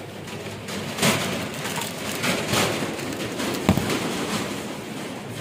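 Crackling, rustling handling noise from snack packets and a shop's chest freezer lid, with a few sharp knocks and one clear knock about three and a half seconds in.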